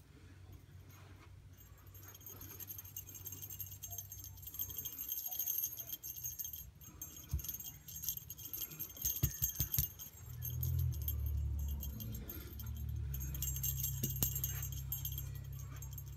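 Small bell on a ribbon cat toy jingling on and off as a kitten bats at it, with light rustling of the ribbon. A low rumble comes in about two-thirds of the way through and is the loudest sound from there on.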